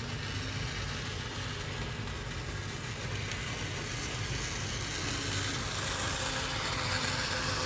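HO-scale model train running on its track, pulling a set of coaches: a small electric motor whirring steadily along with wheel and track noise, growing a little louder in the second half.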